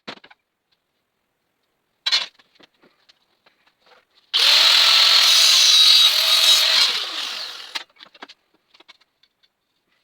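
A power tool runs for about three and a half seconds, starting about four seconds in, then winds down and stops. A single sharp knock comes about two seconds in, with faint scattered taps around it.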